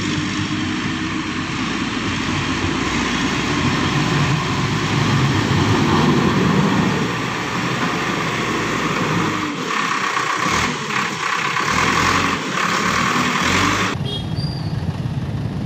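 Backhoe loader's diesel engine running as its front bucket pushes landslide mud and rocks along the road, a steady noisy engine sound that changes abruptly near the end.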